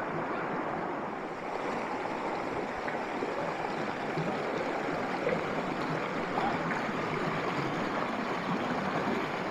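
Shallow rocky stream rushing and splashing over boulders and small cascades: a steady rush of water.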